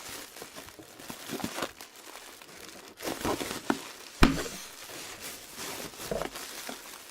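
Plastic packing bubbles crinkling as they are squeezed, with a sharp, loud pop about four seconds in and a few smaller snaps before it.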